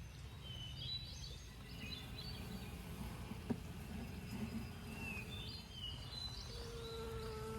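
Honey bee swarm buzzing as a low, even hum, with birds chirping now and then. A steadier, higher-pitched buzz comes in near the end.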